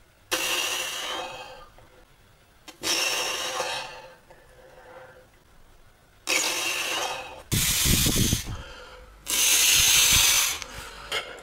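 A man breathing out hard in five bursts, each about a second long, as he strains to hold a flex. One burst partway through also buffets the microphone with a low rumble.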